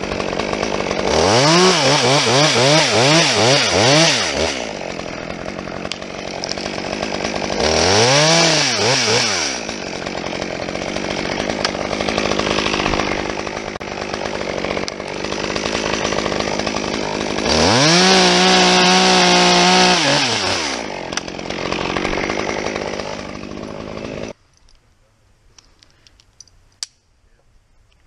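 Two-stroke top-handle chainsaw idling, with the throttle opened in three bursts. The first burst is a run of quick blips and the last is held high for a few seconds. The engine is switched off near the end.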